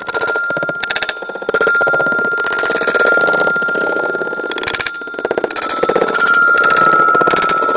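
Glass marbles rolling and clattering down the wavy wooden groove of a HABA marble run in a fast, dense rattle, over a steady high metallic ringing from the run's metal sound bars.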